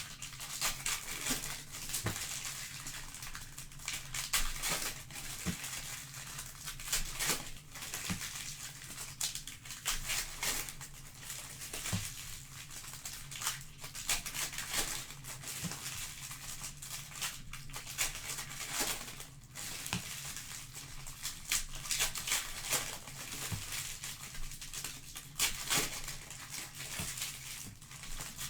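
Trading-card packaging being torn open and crinkled, with irregular crackling and tearing strokes throughout, over a faint steady low hum.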